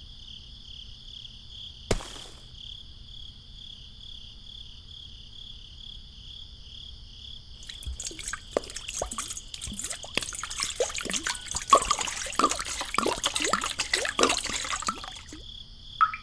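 Wet cement slurry pouring from a toy concrete mixer's drum into a small tin bucket, trickling and splattering, starting about halfway through. A single sharp click sounds about two seconds in, and a steady high chirring runs underneath.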